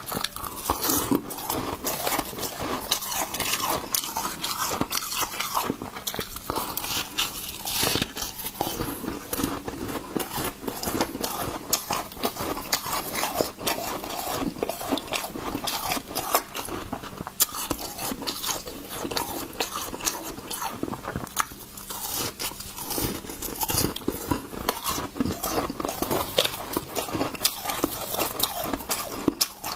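Close-up crunching and chewing of slushy ice frozen in a balloon, a dense run of bites and crackles with no let-up.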